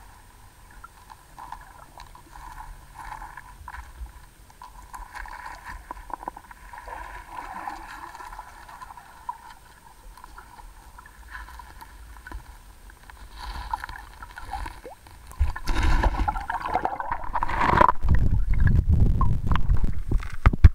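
Creek water heard from a submerged camera: a soft, muffled, steady gurgle. About fifteen seconds in it turns loud, with sloshing and knocking as the camera is handled and pulled through the water.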